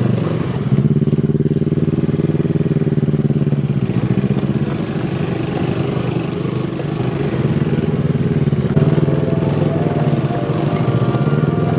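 Motorcycle engine running at fairly steady, low revs while riding off-road, the engine speed wavering and shifting a little in the middle before settling again.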